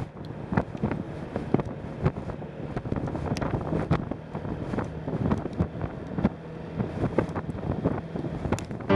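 Strong, gusty wind buffeting the microphone in irregular thumps, over a low steady rumble.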